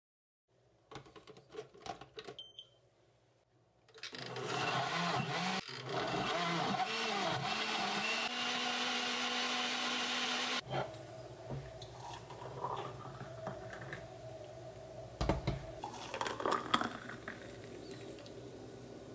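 Countertop blender with a glass jar running for about six seconds, blending a green smoothie; its motor pitch wavers at first, then holds steady before it cuts off suddenly. Light taps come before it, and quieter handling sounds with a couple of knocks after it.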